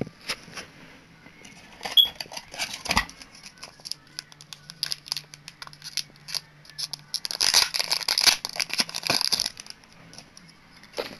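Hands handling metal can badges: scattered clicks and taps as badges are picked up and set down. About seven seconds in comes a dense stretch of crinkling and rustling, which lasts around two and a half seconds.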